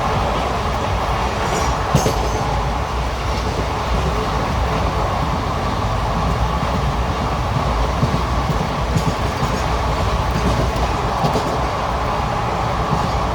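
Track sound of an Indian Railways ICF passenger coach in motion: a steady rumble of wheels on rail, broken by a few sharp clacks.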